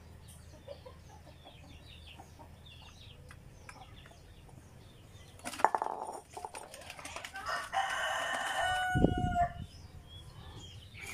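A rooster crowing once, one long call of about two seconds in the second half, the loudest sound here. A sharp knock comes shortly before it, and faint small bird chirps are heard earlier.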